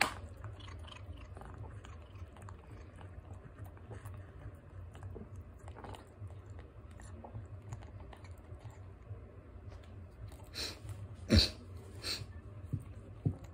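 Domestic cat eating from a plate, with faint chewing and licking of soft food, and a few sharper, louder clicks near the end.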